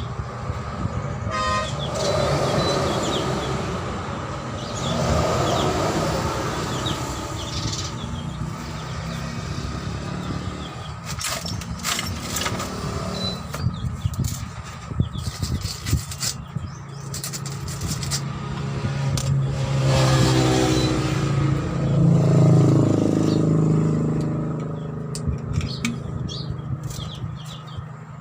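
Motor vehicle engine running and passing, loudest and shifting in pitch about two-thirds of the way through, over a steady traffic background. Scattered sharp clicks and knocks come in the middle.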